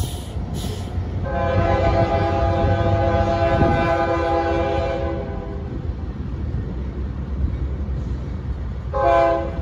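Air horn of the lead diesel locomotive on an approaching CSX intermodal freight train: one long blast of about four seconds, then a short blast near the end, over the low rumble of the locomotives.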